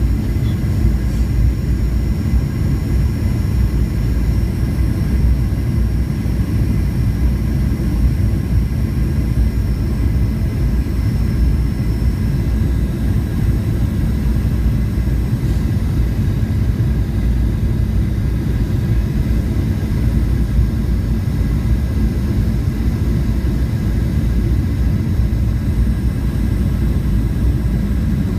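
Steady roar of a Boeing 737's jet engines and rushing air heard inside the passenger cabin on final approach, a low rumble with faint steady whining tones above it.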